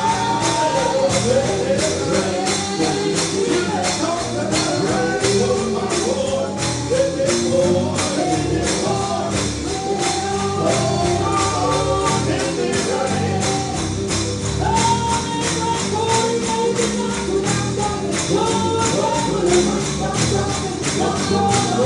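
Gospel song with a tambourine struck on a steady beat and voices singing over it.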